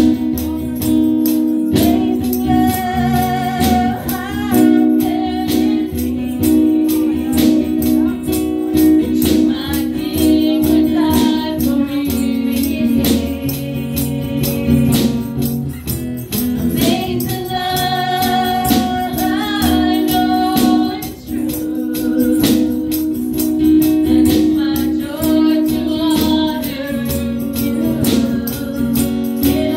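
A woman singing a gospel worship song through a microphone and PA, over held chords from the accompaniment and a steady shaken percussion beat.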